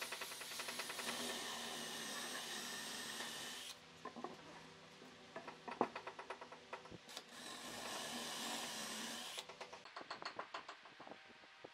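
Woodworking tool sounds: a tool runs steadily with a fast rattle in two stretches. Between them come scattered knocks, and near the end a run of short repeated strokes on wood.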